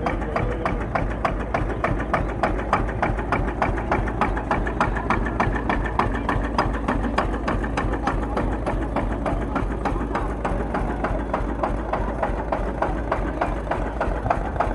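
Vintage tractor engine running steadily, firing with a rapid, even beat of knocks.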